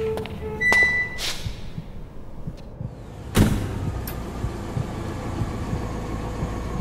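Car sounds: a short electronic beep and a swish, then a sharp thud about three seconds in, after which a car engine runs with a low, steady rumble.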